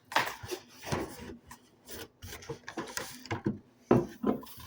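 Objects being slid and shuffled across a wooden surface: irregular scraping and rubbing with a few sharp knocks, the loudest near the start and about four seconds in.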